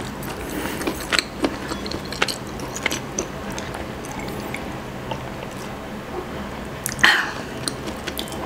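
Close-miked mouth sounds of a person drinking from a mug: swallowing and small wet clicks, with one louder mouth sound about seven seconds in.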